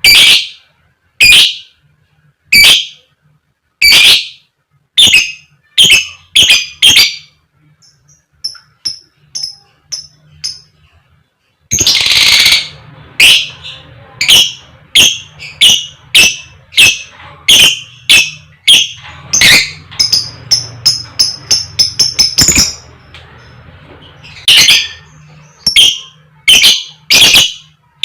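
Lovebird repeating short, loud, sharp 'koek koek' calls, about one a second at first. Quieter high 'cik cik' chirps come in between, with a harsh rasping call about midway, and the calls come faster and closer together in the second half.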